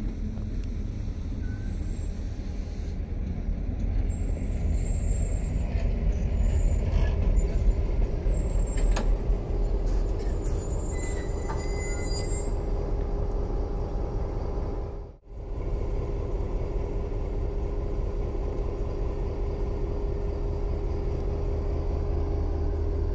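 SNCF BB 67400-class diesel-electric locomotive running with a steady low rumble as it moves slowly along the track. Thin, high metallic squeals come and go between about 3 and 12 seconds in, and the sound cuts out for an instant about two-thirds of the way through.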